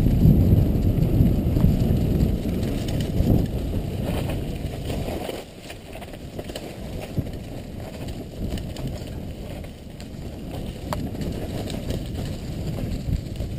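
Mountain bike riding fast down a leaf-covered dirt trail: tyre and trail noise with rattling over bumps and wind rumble on the helmet-mounted microphone. It is loudest for about the first five seconds, then drops and carries on with scattered sharp clicks.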